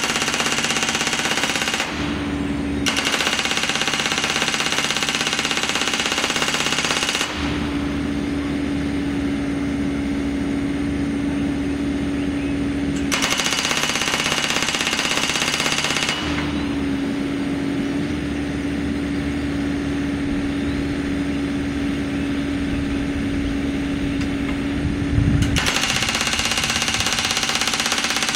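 Hydraulic post driver on a mini excavator rapidly hammering a twelve-foot wooden fence post into wet clay soil. It comes in several long bursts, with the excavator's engine and a steady hydraulic hum running between them.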